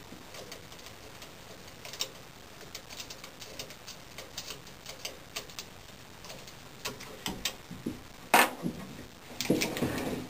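Small, irregular metallic clicks and ticks as a bow press's limb clamp is loosened by hand on a compound bow's limb tip, then a louder knock and a brief scrape as the clamp hardware is pulled away near the end.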